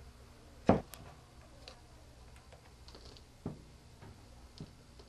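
Handling knocks and clicks from a plastic training arm being worked on a tabletop, with one sharp knock about a second in and a few lighter ones after.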